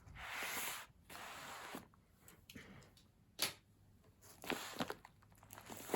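Package rustling as it is handled: two swishes of the wrapping in the first two seconds, a sharp click about three and a half seconds in, then light crinkling near the end.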